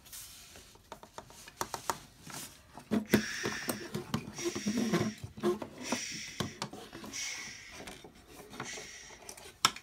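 Plastic Lego pieces clicking and knocking on a tabletop as a Lego Luggabeast model is moved along by hand, with a louder breathy noise that swells about once a second through the middle.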